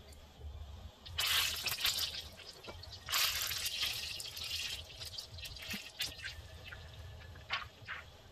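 Liquid poured into a pan of hot melted butter, sizzling in two bursts, about a second in and again about three seconds in, each fading away. A few light ticks near the end.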